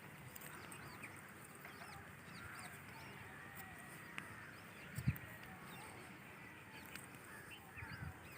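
Faint mix of bird calls: many short chirps and whistled notes from small birds, with one low thump about five seconds in.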